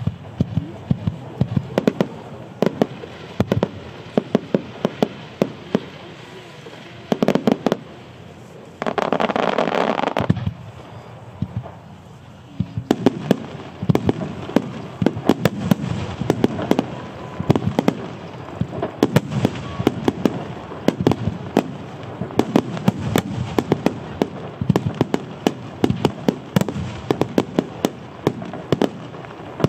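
Starmine fireworks barrage: a rapid, continuous run of mortar launches and aerial shell bursts, many sharp bangs overlapping. About nine seconds in, a denser rush of noise lasts for roughly a second and a half.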